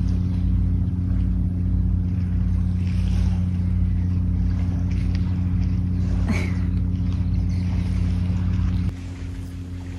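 Boat engine running with a steady, deep, even hum. The level drops suddenly about nine seconds in.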